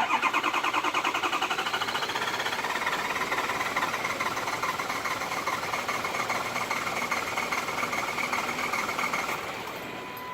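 Ford 6.0 L Power Stroke V8 turbodiesel cranking on the starter at a steady rhythm of about five beats a second without catching, then stopping near the end. It is a crank-no-start, which the owner diagnoses as a failed high-pressure oil pump (HPOP).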